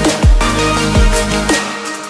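Electronic dance music with heavy bass hits that drop in pitch; the deep bass falls away briefly near the end.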